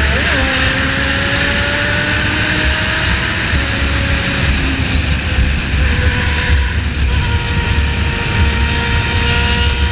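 Motorcycle engine pulling under way at riding speed, mixed with heavy wind rush. Its pitch rises slowly over the first few seconds, then holds steady.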